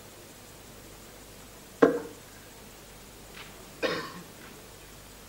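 Two darts thudding into a dartboard, about two seconds apart; each is a short, sharp hit that fades quickly, and the first is the louder.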